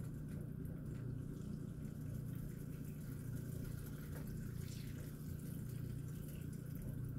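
Melted butter bubbling and sizzling steadily in a skillet as it boils, foaming up on its way to browning.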